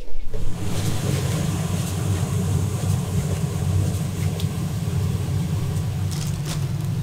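A steady low rumble with a hiss above it, starting just as the scraping stops, with a few faint ticks over it.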